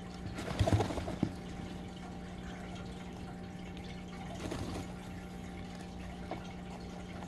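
Rustling and soft knocks in a hay-and-fur nest as nine-day-old baby rabbits twitch and shift. A cluster of sharper clicks comes about a second in and a softer rustle near four and a half seconds in, over a steady low hum.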